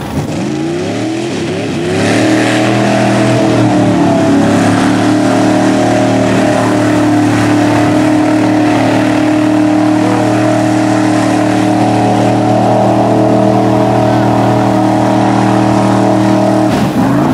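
Lifted GMC square-body mud truck's engine revving up over about the first two seconds, then held at a steady high pitch, flat out, as the truck drives through the mud pit. The steady engine note breaks off near the end.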